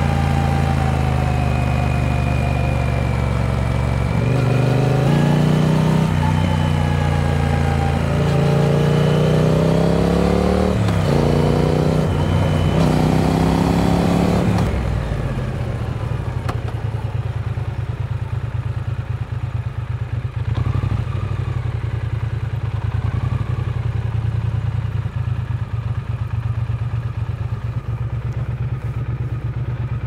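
Triumph Speed Twin 900's parallel-twin engine under way, its note climbing and dropping in steps with throttle and gear changes, with wind rushing over the microphone. About halfway through the wind falls away and the engine settles to a low, steady note at low revs.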